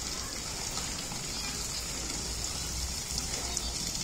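Steady rushing hiss of running water, even and unbroken.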